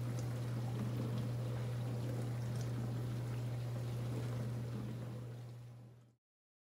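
Whirlpool dishwasher running: a steady low motor hum with water rushing inside. It stops abruptly near the end.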